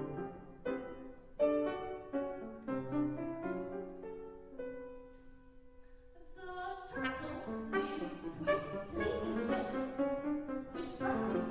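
Trumpet and piano playing a contemporary classical piece: short detached chords, a quieter held note about four seconds in, then a fuller, louder passage from about seven seconds.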